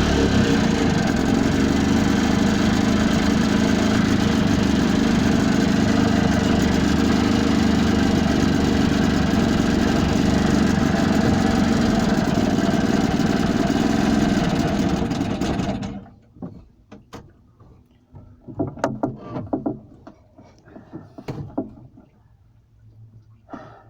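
Boat engine running steadily under way, then dropping away suddenly about 16 seconds in, followed by a few scattered knocks and clatters.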